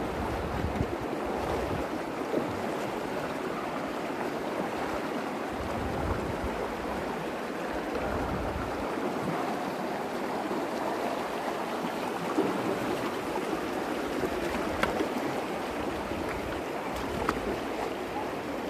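Shallow Virgin River water rushing and riffling steadily over stones, with gusts of wind buffeting the microphone now and then.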